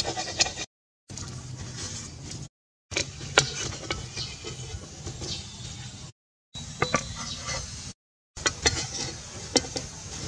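Slices of food frying in oil in a steel wok, with sharp clicks and scrapes as a metal spatula turns and lifts them against the pan. The sound drops out briefly four times.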